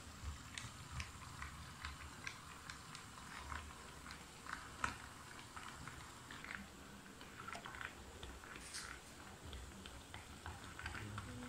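H0-scale model train, a Piko ÖBB Rh 2016 Hercules diesel locomotive hauling passenger coaches, running on the track: a run of small irregular clicks from the wheels on the rails, over a faint low rumble.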